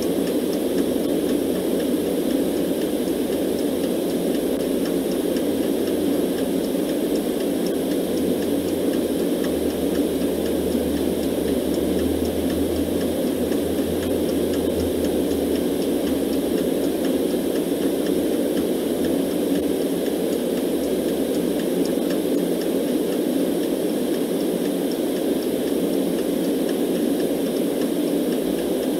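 Steady, deep white-noise rush that does not change, with a mechanical clock ticking faintly and evenly over it.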